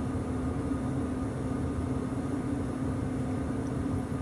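Steady mechanical background hum with a constant low tone, like an air conditioner or fan running.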